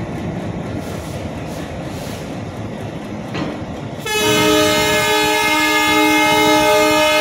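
WDM-3D diesel locomotives rolling slowly past with a steady engine and wheel rumble. About four seconds in, a locomotive air horn starts a long, steady blast that becomes the loudest sound.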